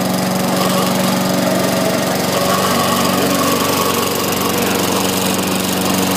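Small engine of a self-propelled walk-behind lawn mower running steadily while mowing.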